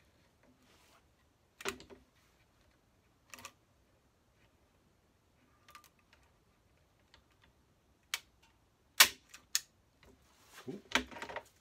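Hand staple gun snapping staples through grill cloth into a wooden speaker-cabinet baffle board: a few sharp, separate snaps, the loudest about nine seconds in, with smaller clicks of handling between them.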